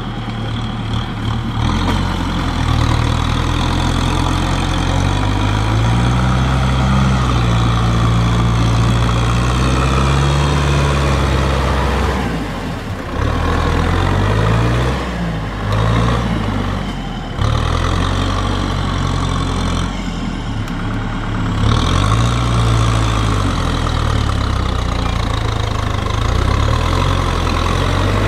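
Kubota tractor's diesel engine running under load as it tills wet paddy mud, its pitch rising and falling, with a few short dips in loudness around the middle.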